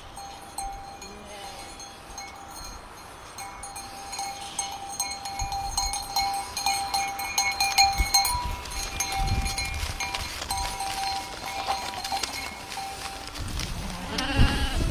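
Goat bells clinking and ringing as the goats move, and a goat bleats near the end.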